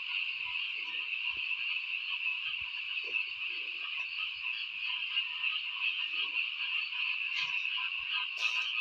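Night chorus of frogs: a dense, steady, high-pitched chorus, with a few short, lower croaks standing out now and then.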